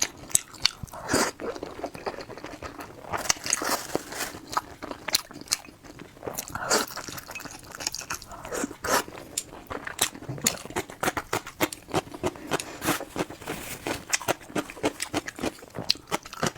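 Close-miked eating: a person biting and chewing crisp food, with many sharp crunches coming several times a second.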